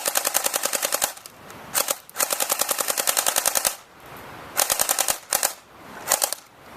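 Airsoft gun firing on full auto, four bursts of rapid shots at about a dozen a second: two long bursts, then two short ones. The gun empties its BBs by the end.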